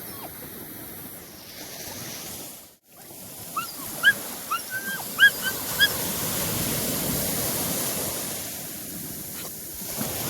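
Australian shepherd whining in a quick string of short, high whimpers over the steady wash of ocean surf and wind. The whimpers come between about 3.5 and 6 seconds in; the surf swells louder after them.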